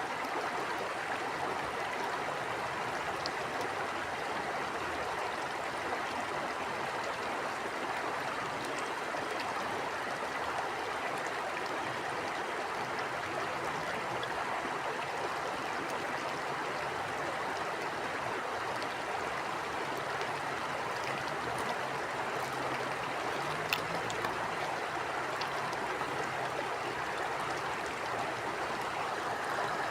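River water flowing over rocks: a steady, even rush with small gurgles and the odd faint splash.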